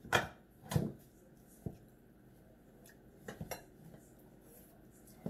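Dishes and cutlery clinking and knocking at a meal table: two louder knocks in the first second, then a few lighter clicks and knocks spread through the rest.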